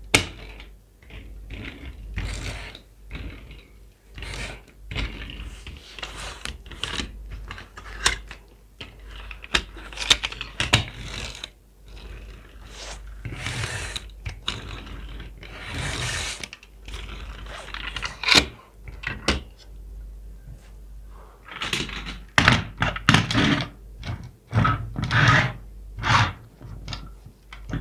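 Toy cars and their packaging being handled up close: an irregular run of small plastic clicks, taps and knocks, mixed with stretches of rustling and scraping.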